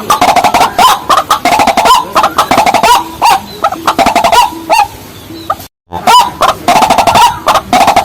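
Rapid, repeated clucking calls of rails, the white-breasted waterhen and watercock, many short notes in quick succession. The calling thins out in the middle, cuts out completely for a split second about three-quarters of the way through, then resumes densely.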